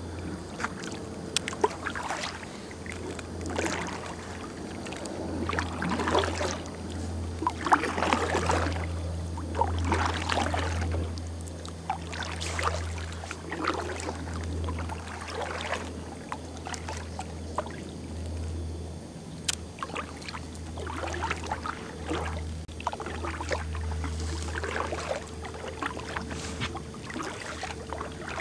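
Kayak paddle strokes in calm water: the blade dips and swishes through the water about every two seconds.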